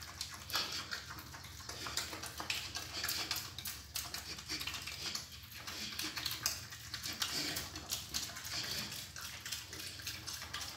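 Young pig eating pellet feed, chewing in a run of quick, irregular clicks.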